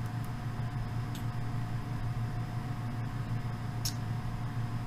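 Steady low hum with a faint thin tone above it, a constant background noise with no speech. A few faint computer-mouse clicks, the clearest near the end.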